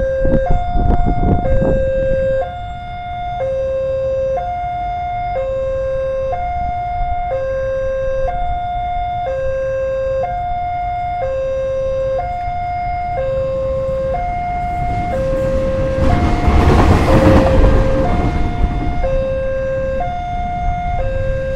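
Railway level-crossing warning alarm sounding steadily, alternating between a higher and a lower electronic tone, each held a little under a second. Partway through, a loud rushing noise swells and fades over it.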